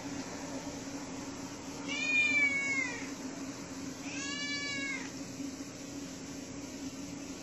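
Domestic cat meowing twice: two drawn-out meows about a second long each, the first louder and falling off at its end, the second about two seconds later, over a steady low hum.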